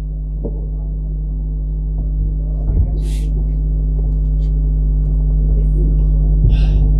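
Steady electrical mains hum from the public-address sound system, slowly growing louder, with a few faint clicks and rustles over it.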